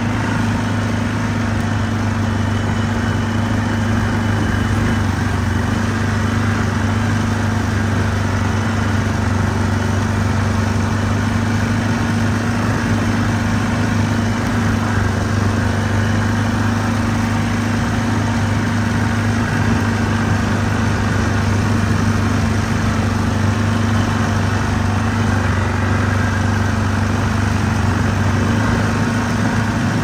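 Off-road vehicle's engine running at a steady, even speed: a constant low hum that holds one pitch throughout.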